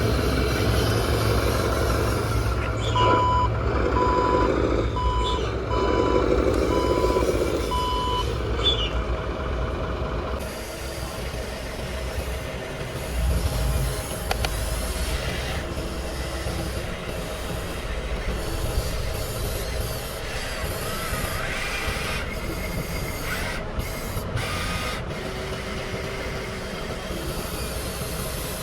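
RC dump truck's engine-sound unit running, with a reversing beeper sounding about seven evenly spaced beeps a few seconds in. After about ten seconds the running sound drops to a quieter, rougher mix.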